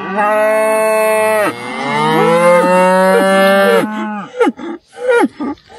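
Scottish Highland cattle mooing loudly: one long moo, then after a short break another long moo with a second cow joining in over it, dying away about four seconds in.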